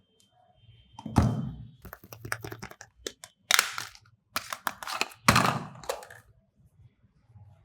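Soap being unpacked by hand: a series of knocks and rustles as packaging is handled and the bar is set down. The loudest come about a second in and again a little past five seconds, with quieter handling between them.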